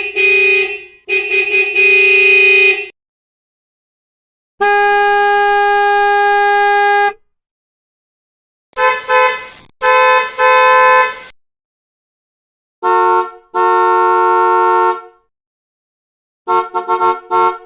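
Car horns sounding one clip after another, with a second or two of silence between them. There are pairs of honks, a short one followed by a longer held one, a single long steady blast about two and a half seconds long, and near the end a quick run of short toots.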